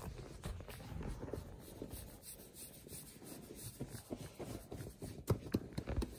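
Soft rubbing and scraping handling sounds, with a few light knocks about five and six seconds in.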